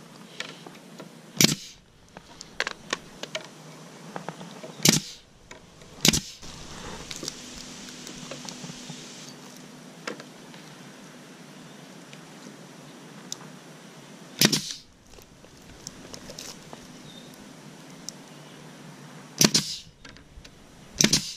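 Ridgid pneumatic 18-gauge brad nailer firing brads into the corners of a pine trim frame: about six sharp shots at irregular intervals, with light clicks of handling between them.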